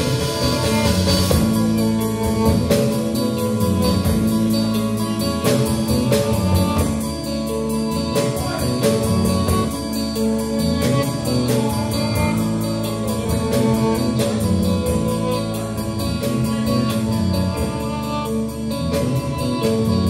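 Live instrumental rock from a trio of electric guitar, bass guitar and drum kit, playing continuously with a steady drum beat under sustained guitar notes.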